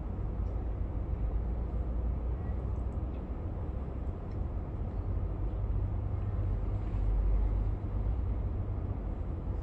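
Tram running along the line: a steady deep rumble of motors and wheels on the rails, swelling a little about seven seconds in.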